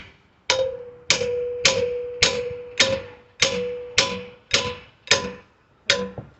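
A small sledgehammer striking a steel pry bar about ten times at a steady pace of roughly two blows a second. Each blow rings with a clear metallic tone as the bar is driven in between the pallet boards.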